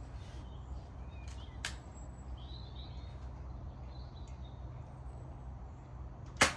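Sub-12 ft-lb air rifle firing a single shot near the end, a sharp crack that is the loudest thing heard. Before it comes a lighter click about a second and a half in, with faint bird chirps over a steady low rumble.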